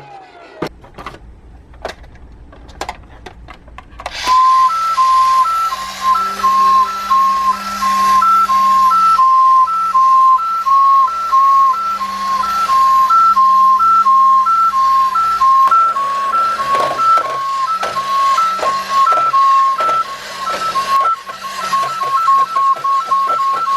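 Electronic toy beeping: a repeating pattern of short tones on two pitches, starting about four seconds in after a few clicks and coming faster in the last third.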